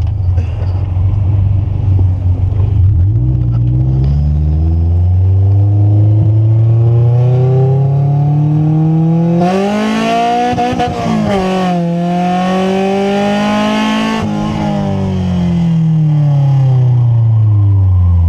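Honda Civic EF sedan's four-cylinder engine heard from inside the cabin, revving up hard under acceleration with a rising whine and a loud intake rush at the top. The revs dip briefly about two-thirds of the way through, climb again, then fall steadily as the car coasts off the throttle.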